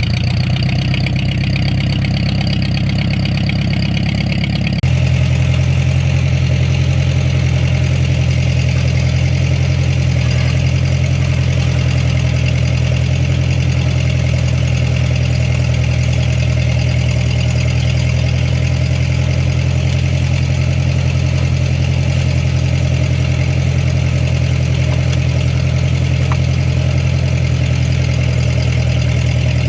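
Ford 8N tractor's four-cylinder flathead gasoline engine running steadily, its note changing abruptly about five seconds in and then holding steady.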